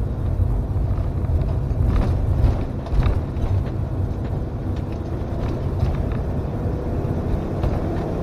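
Motorhome being driven, heard from inside the cab: a steady engine and road rumble, with a couple of brief knocks about two and three seconds in.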